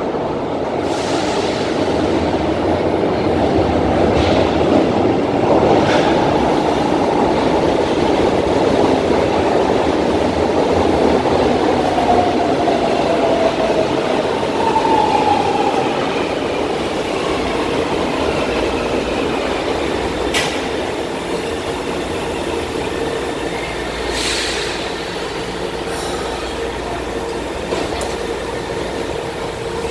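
São Paulo Metro Line 1 train running along the underground platform, a loud rumble of wheels and motors with a brief wheel squeal about halfway through. The rumble then fades to a steadier, quieter hum, with a couple of short sharp sounds near the end.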